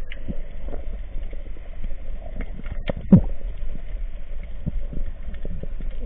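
Underwater sound picked up by a camera in its waterproof housing: a steady low rumble of moving water with irregular short clicks and knocks, one louder knock about three seconds in.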